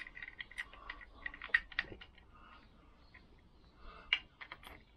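Irregular light metallic clicks and taps as a Lambretta stator plate and its screws are handled and pushed into place inside the magneto housing.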